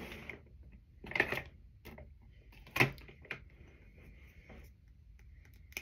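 Makeup items being rummaged through and handled: light rattling and rustling with several small plastic clicks, the sharpest one a little under three seconds in.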